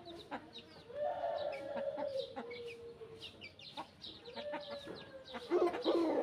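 Chickens clucking, with long drawn-out calls of a second or two and many short high chirps over them; a louder burst of calls near the end.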